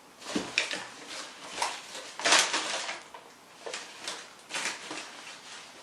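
Close-miked eating sounds from a barbecue rib meal: irregular chewing, mouth and lip noises, with the loudest burst a little over two seconds in.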